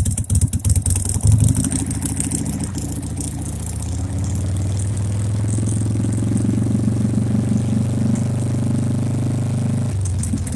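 Harley-Davidson Sportster V-twin engine idling with a pulsing beat, then brought up gradually to a higher steady speed and held there, dropping back to idle near the end. The revs are held up to check the regulator's charging voltage.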